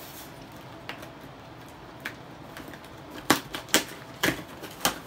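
Cardboard shipping box being torn open by hand: packing tape and flaps giving way in four sharp cracks in the last two seconds, after quieter rustling and a few faint ticks.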